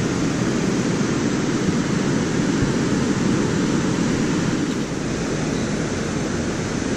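Steady rushing noise of water pouring out through a concrete dam spillway.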